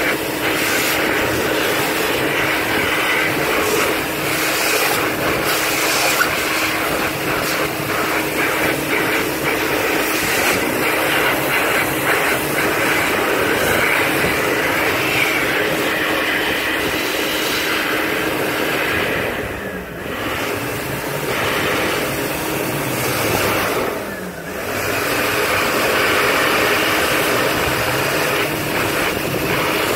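Mitsubishi Electric Jet Towel hand dryer running, blowing a loud steady rush of air with a faint steady motor tone through it. The sound dips briefly twice, about two-thirds of the way through, then comes back up.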